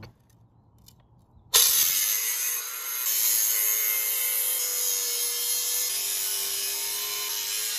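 DeWalt 20V MAX XR 4.5-inch cordless angle grinder with a Diablo masonry cutting blade starting abruptly about a second and a half in and cutting into a masonry block. It makes a loud, steady grinding, with the motor's pitch dipping slightly under load.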